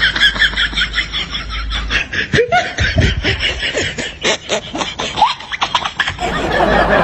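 Laughter: a rapid run of short, snickering giggles, with a few sharper bursts through the middle.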